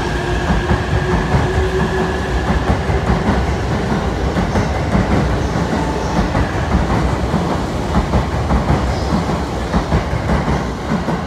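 E657 series Jōban Line limited express train pulling out of the station, its wheels clattering steadily over the rail joints.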